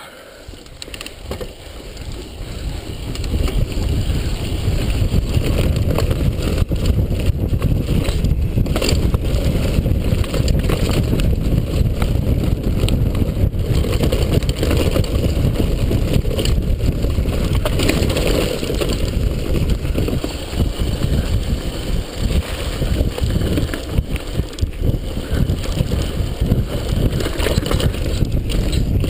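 Wind buffeting an action camera's microphone, mixed with the rattle and jolts of a downhill mountain bike ridden fast over a rough dirt and stone trail. It builds over the first few seconds, then stays loud and dense.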